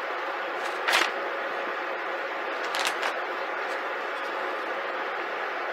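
Plastic vacuum-seal bag rustling briefly under gloved hands as scallops are laid into it, once about a second in and again in a short cluster near three seconds, over a steady hiss.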